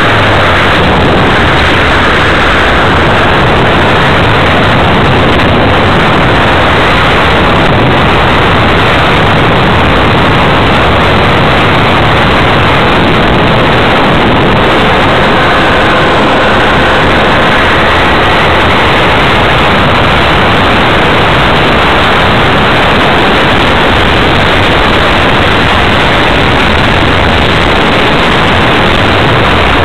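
Loud, steady rushing noise from an RC plane in flight, picked up onboard, unchanging throughout, with a faint whine running through it.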